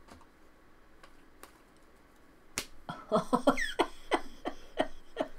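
Chrome trading cards being handled and shuffled in the hands. A single sharp click comes about halfway through, then a quick run of light clicks and taps.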